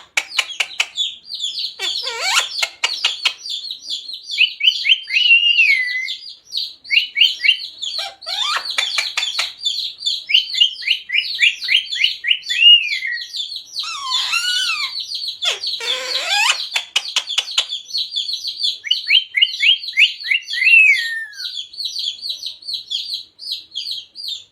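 Pet parrot chattering in a fast, continuous run of high chirps. Several louder squawks slide down in pitch: about two seconds in, around eight seconds, and twice near the middle.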